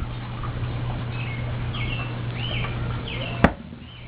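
Small birds chirping again and again in short hooked calls over a steady low hum, with one sharp click about three and a half seconds in.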